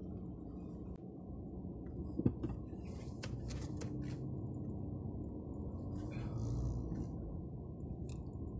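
Car interior noise while driving slowly: a steady low engine and road hum, with scattered light clicks and rattles from the cabin, the sharpest about two seconds in.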